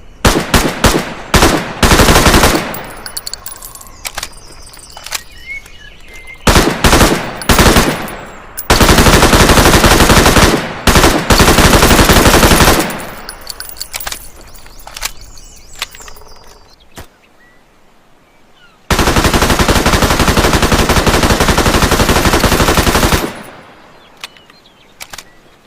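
Thompson submachine gun with a drum magazine firing full-auto in bursts: several short bursts in the first few seconds, two longer ones in the middle, then one sustained burst of about four seconds, each trailing off in echo.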